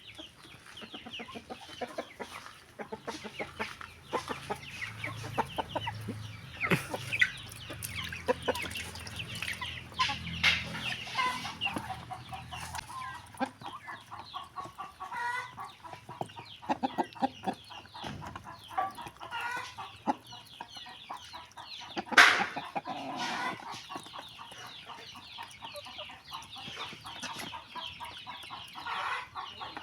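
Chickens clucking, among many small clicks and knocks, with one loud sharp knock about two-thirds of the way through. A low hum runs underneath during the first part.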